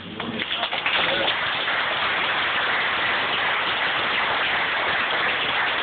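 Group of people applauding: dense, even clapping that swells up within the first second and then holds steady.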